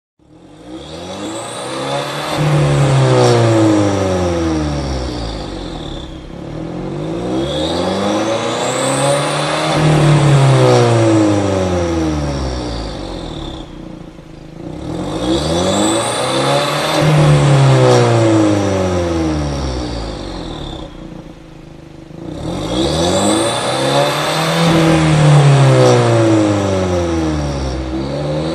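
Abarth 124 Spider's turbocharged 1.4-litre four-cylinder engine through a Kreissieg F1 exhaust, revving up and settling back down four times, each cycle about seven seconds long.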